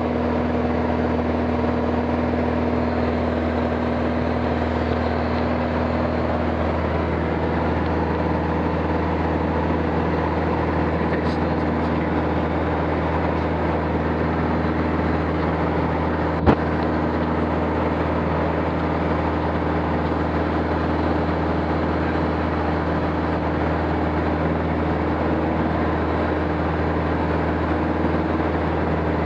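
Aircraft engine droning steadily, with a single sharp click about sixteen seconds in.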